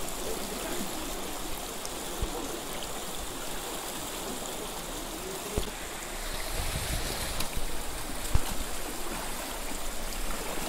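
Shallow stream rushing steadily over stones and gravel, a continuous even hiss of moving water, with a few low thumps in the second half.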